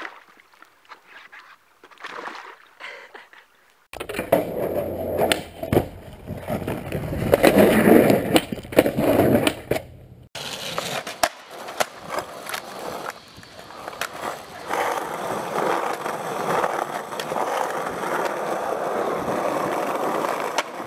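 Skateboard sounds over several cuts: wheels rolling on concrete with board clacks and landing impacts, loudest about halfway. The first few seconds are quieter, with the board splashing through a shallow stream.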